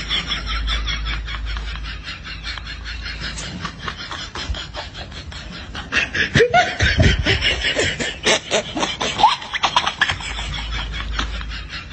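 A person snickering and giggling in quick breathy bursts, about five a second, dying down a few seconds in and coming back louder about six seconds in.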